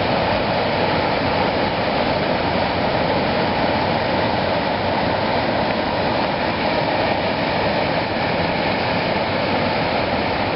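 Floodwater rushing past in a steady, unbroken flow.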